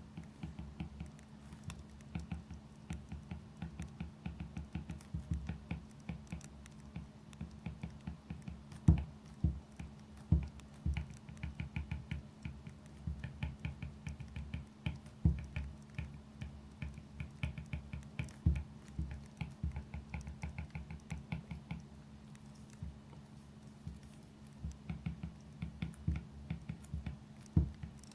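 Pen writing on paper on a desk: a dense, uneven run of small scratches and taps, with a few louder knocks and a pause in the writing a little past the middle. A faint steady low hum lies underneath.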